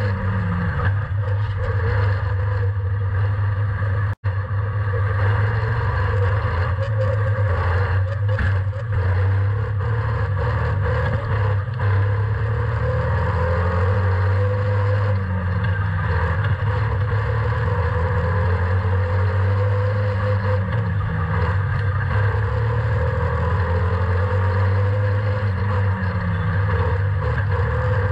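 A Slingshot race car's engine at racing speed, heard through its onboard camera. The pitch rises and falls every few seconds as the car runs laps, and the sound cuts out briefly about four seconds in.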